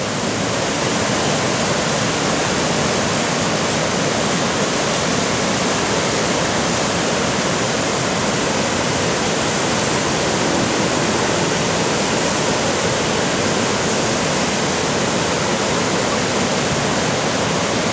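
White-water river rapids rushing steadily.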